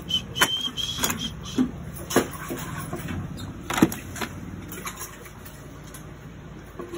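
Screwdriver clinking against a rusted bicycle chain and chainring: a handful of sharp metallic clicks and taps at irregular intervals, the loudest about four seconds in, over a low steady hum.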